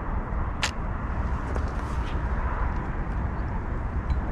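Steady low rumble and hiss of open-air background noise, with a faint sharp click a little over half a second in.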